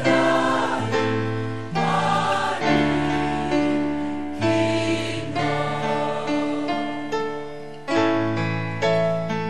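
Mixed choir of young women and men singing in harmony, holding sustained chords that move to new notes every second or two.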